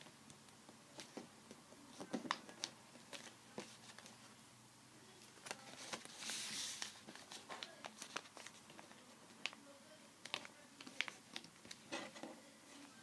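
Sheet of paper being folded and creased by hand: scattered soft taps and crinkles, with a longer rustle of the sheet about halfway through.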